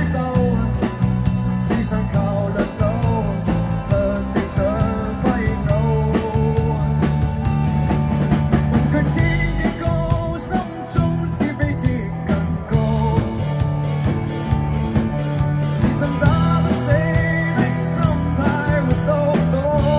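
Live rock band playing: drum kit with a steady beat on the cymbals, bass guitar, and electric and acoustic guitars carrying a wavering melodic line.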